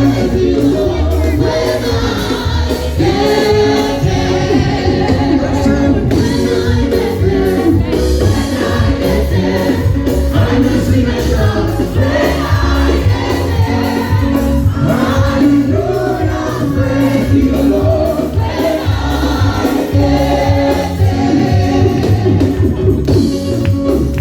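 Gospel singing by a group of voices over band accompaniment, with a heavy bass line and a steady drum beat.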